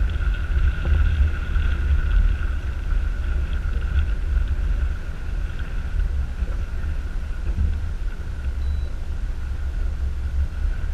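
A boat motor running steadily at trolling speed, with a steady high whine over a heavy low rumble of wind buffeting the microphone.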